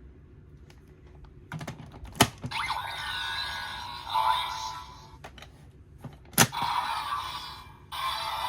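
Hard plastic clicks of a DX Blizzard Sorbet Gochizo toy being pressed: two sharp clicks, each followed by electronic sound effects and music from the toy's small speaker.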